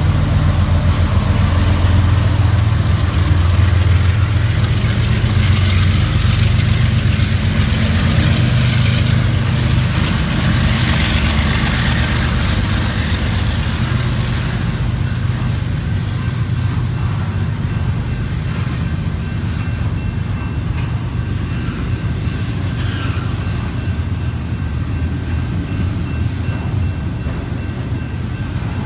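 CSX freight train passing: diesel-electric locomotives go by first with a deep, steady engine hum, which gives way about halfway through to the steady rolling rumble of double-stack intermodal well cars on the rails.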